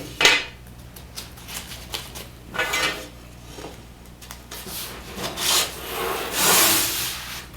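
The bottom rail of a Hunter Douglas Duette honeycomb shade being slid into the shade's fabric, rubbing and scraping in several strokes, the longest and loudest near the end.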